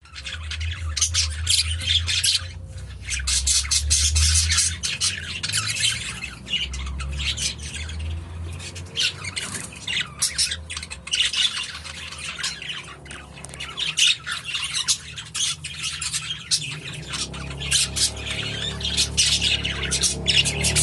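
English budgerigars chattering in a dense run of quick chirps and harsh squawks, with only brief pauses, over a low steady hum.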